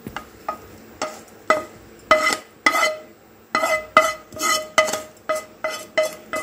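A spatula scraping cooked cucumber pieces out of a nonstick pan into a stainless steel mixer jar, with repeated knocks against the pan and the jar's rim; the steel jar rings after each knock. The knocks come faster and louder in the second half.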